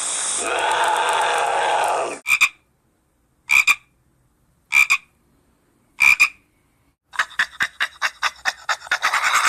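Animal calls: a drawn-out pitched call that ends about two seconds in, then four short, sharp two-part croaks a little over a second apart with silence between, then a fast run of clicking pulses, about six a second.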